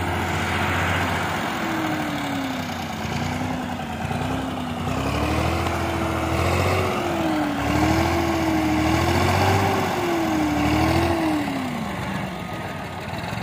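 Tractor diesel engine working under load, its speed rising and falling as the throttle is worked, with heavier low pulsing in stretches as it strains against the tipped trolley.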